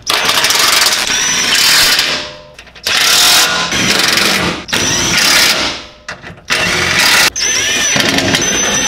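DeWalt 18V cordless impact driver hammering in about five bursts of one to two seconds each, with a high whine over the rapid clatter, as it runs the skid plate bolts tight.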